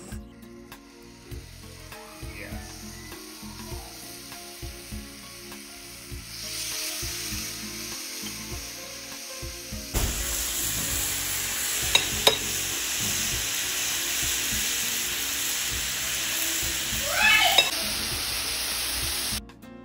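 Raw marinated chicken tenders sizzling as they are laid on a hot ridged grill pan. The sizzle builds about six seconds in and is loud and steady from about ten seconds on, with two sharp clicks of the tongs around twelve seconds and a brief squeaky scrape near the end. Soft background music plays underneath, mostly in the first half.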